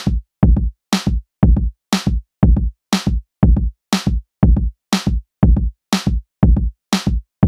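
Background music: an electronic drum-machine beat, with a kick drum about twice a second and a cymbal-like hit on alternate beats.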